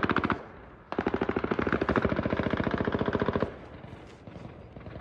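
Anti-aircraft machine gun firing rapid bursts. A burst cuts off just after the start, and about a second in a longer burst runs for some two and a half seconds.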